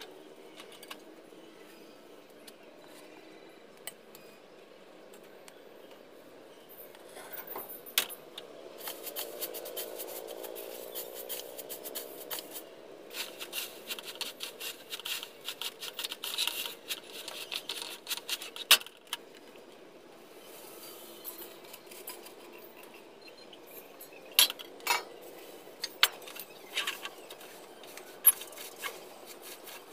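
Metal cookware and utensils handled at the stove: sharp clinks and knocks, about eight seconds in, near nineteen seconds and in a cluster near the end, with a stretch of dense scraping and rustling in the middle.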